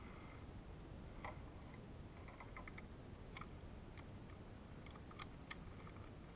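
Faint, scattered sharp clicks and ticks, about a dozen at irregular intervals, over a low steady rumble of background noise.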